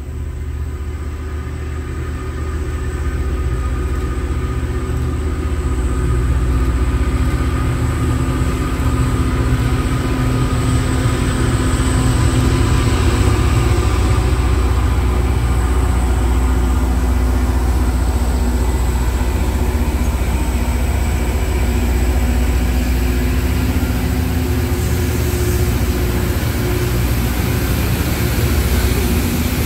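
Loram rail grinder train passing close by: diesel engine drone and rumble of the train on the rails, building over the first several seconds as the lead unit approaches, then a steady heavy drone as the grinder cars with their diesel power units roll past.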